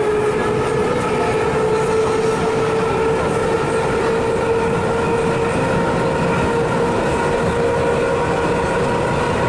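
Metro train running between stations, heard from inside the carriage: a steady rumble of wheels on rails with a steady whine that rises slightly at the start.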